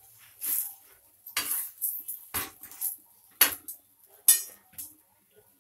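Metal kitchen utensils and cookware clinking and clattering in a series of sharp knocks, the two loudest a little past the middle.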